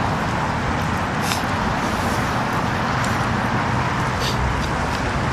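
Steady rushing background noise with a faint low hum underneath and a few brief, soft high-pitched rustles.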